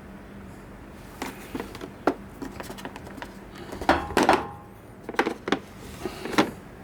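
Screwdrivers being handled: scattered light clicks and clinks of hard tool handles and shafts knocking together. A louder cluster of knocks comes about four seconds in, with a brief metallic ring.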